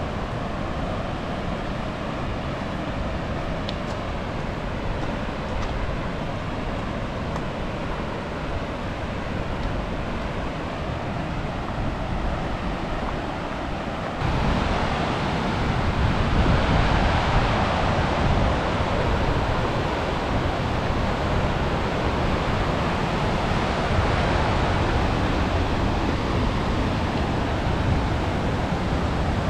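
Steady rush of flowing water, becoming suddenly louder and brighter about halfway through.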